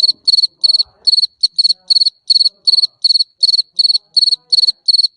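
A jangkrik mbering cricket chirping steadily, about three short, high-pitched, trilled chirps a second in an even rhythm.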